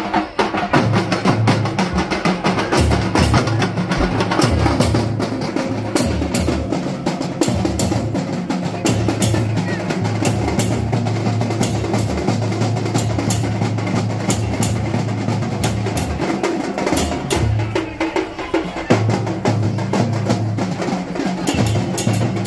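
Procession music: drums and cymbals beaten in a busy, rapid rhythm over a steady low tone.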